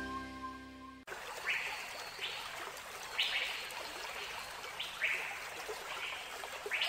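The end of a music track fades out and cuts off about a second in. It gives way to outdoor ambience: a steady hiss with birds chirping, short rising calls heard about six times.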